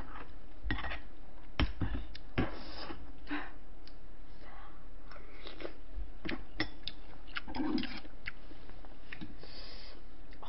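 Close-miked eating sounds: a spoon clinking and scraping in a ceramic bowl, with chewing. Short clicks and scrapes come irregularly, the sharpest a couple of seconds in.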